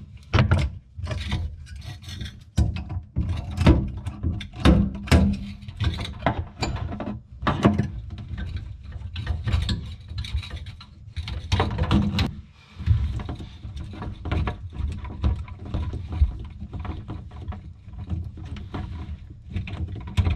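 Tongue-and-groove pliers and hands clinking and knocking on brass compression nuts as braided stainless-steel supply hoses are unscrewed from the sink's shut-off valves. Irregular clicks and scrapes of metal and hose handling.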